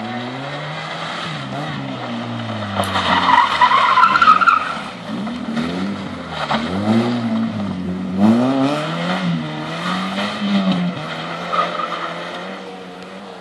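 Rally hatchback's engine revving hard, its pitch climbing and dropping again and again through gear changes and lifts. About three to four seconds in, tyres squeal and skid on the loose surface; this is the loudest part.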